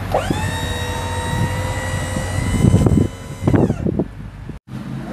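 Truck liftgate's electric hydraulic pump motor whining as the platform is raised: the whine climbs quickly in pitch as the motor spins up, holds steady for about three seconds, then stops. A few low thumps come near the end, over a steady low engine hum.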